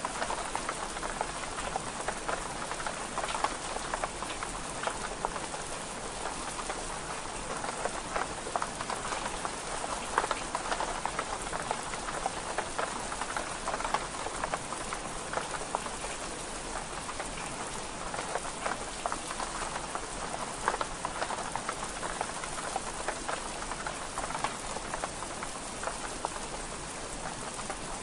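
Steady rain pattering on window glass: an even hiss of rain dotted with many small, irregular drop taps.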